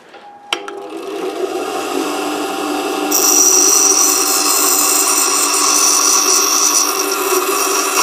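Bench grinder starting with a click and its motor running up to speed. From about three seconds in, a high-speed-steel lathe boring tool is pressed against the spinning grinding wheel, adding a high grinding hiss over the steady motor hum as its tip is ground down.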